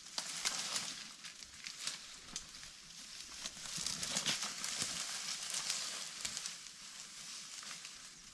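A person moving through dry leaf litter on the forest floor, with irregular crunching and rustling of the leaves.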